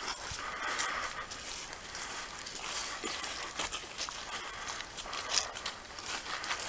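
Footsteps swishing and crunching through grass and fallen leaves, with the rustle of clothing as people walk: an irregular crackling patter.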